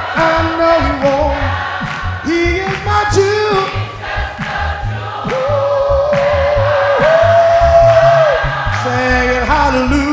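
Live gospel song sung by a man into a microphone. About five seconds in he holds one long note for some three seconds.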